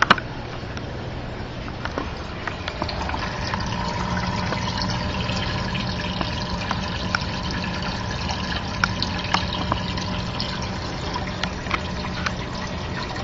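Water splashing and trickling from a filter outlet into the shallow water of a frog tank, with a low steady hum underneath and scattered small splashes.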